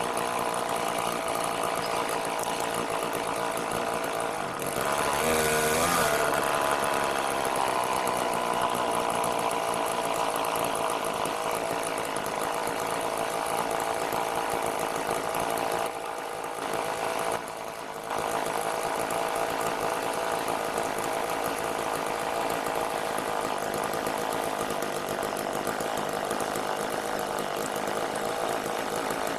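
Bracket-mounted chainsaw running steadily high in a tree, revving up briefly about five seconds in and dipping twice for a moment near the middle.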